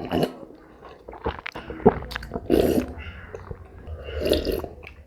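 Close-miked eating: a person chewing food, with many short wet mouth clicks and smacks and a couple of louder bursts of chewing.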